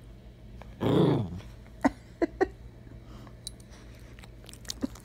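A small terrier-poodle mix dog gives one short, low growling grumble about a second in, demanding attention, followed by a few short sharp clicks.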